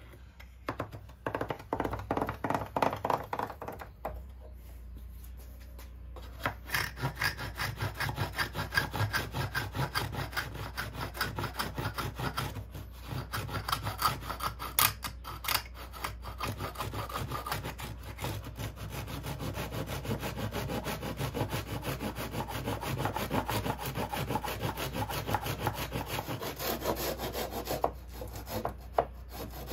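Japanese handsaw cutting wood in quick, short back-and-forth strokes. A few strokes come at the start, then a short pause, then steady sawing from about six seconds in.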